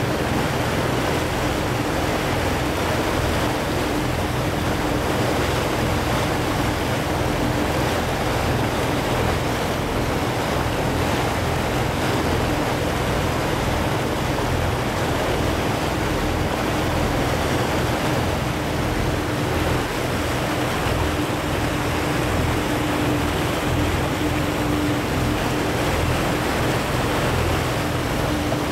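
A boat's engine running steadily under way, a constant hum over the rush of water churned up in its wake, with wind on the microphone.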